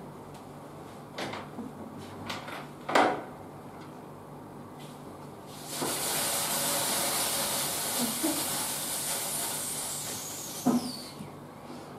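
A stage rain effect from a puppet cloud: a steady, high hiss like falling rain, starting about six seconds in and lasting about five seconds before fading out. Before it, a few short knocks and rustles from handling the props.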